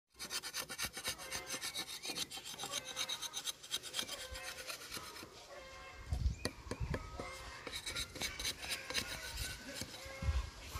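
A metal blade scraping the bare wood of a ring stripped of bark on a mango branch, the girdle cut for an air layer. Quick rasping strokes come several a second, busier in the first half, with a few dull low bumps around the middle and near the end.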